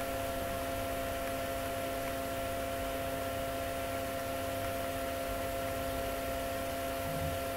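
Steady electrical hum with a few fixed tones over a constant hiss: the background noise of the recording, with nothing else happening.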